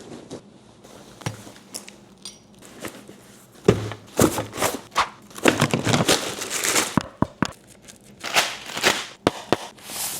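Packaging crinkling, rustling and tearing in irregular bursts as items are unboxed, with a few sharp knocks.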